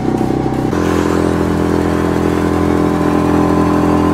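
Suzuki outboard motor running steadily under way on an inflatable boat, with water rushing past the hull. Its note shifts a little under a second in and then holds even.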